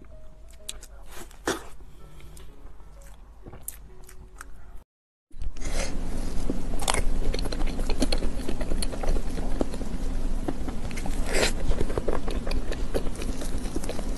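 Close-miked eating sounds: a fork cutting and scraping through a layered durian crepe cake, with soft biting and chewing. After a brief silent gap about five seconds in, the scraping and clicking grow much louder over a steady background hiss and hum, with two stronger scrapes.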